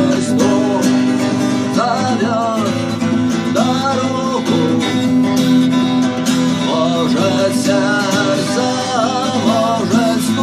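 Acoustic guitar strumming a steady chord pattern, with a wavering melody line over it and no sung words.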